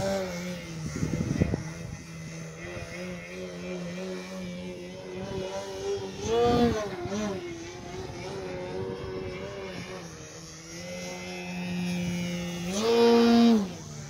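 Electric motor and propeller of a large-scale Slick 540 aerobatic RC plane, a 12S electric setup, whining steadily in flight. The pitch and volume swell up and back down as the throttle is opened, about six and a half seconds in and again near the end.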